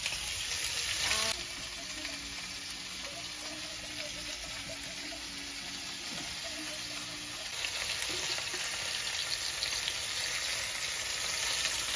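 Strips of beef searing in very hot oil in a frying pan, being browned on the outside: a steady sizzle, louder for the first second or so, with crackling spatter building again in the second half.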